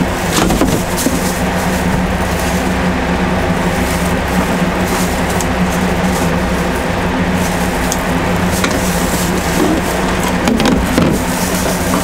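An engine running at a steady speed, a constant low hum, with a few light knocks and rustles over it.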